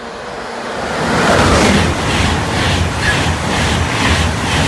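ICE 1 high-speed train passing through a station at speed. The rushing noise swells over the first second as it comes in, then holds loud and steady, with a regular beat about three times a second as the carriages go by.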